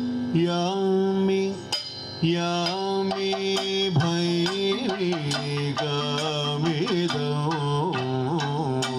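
Kathakali vocal music: a male voice singing long held notes with gliding ornaments, over sharp percussion strikes.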